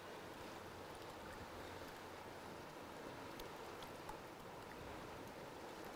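Faint, steady rush of river current flowing past, with a few faint small ticks.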